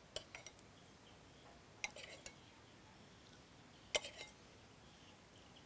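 Metal ladle clinking as broth is ladled from a pot into a bowl: three light clinks, each followed by a couple of smaller ones, about two seconds apart.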